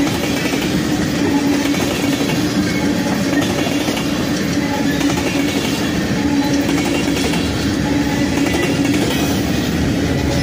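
Norfolk Southern freight train's tank cars and a flat car rolling past, steel wheels on rail making a steady rumble with a clickety-clack and a constant low hum.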